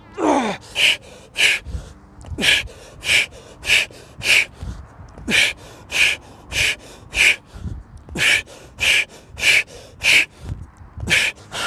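A man panting hard, out of breath from exertion at the end of a strength workout of push-ups: quick, loud breaths about one and a half a second. The first is a falling groan.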